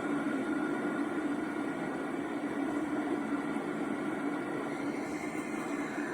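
Steady rushing white-noise sound with a low hum in it, played through a small speaker of a baby sleep-soother plush.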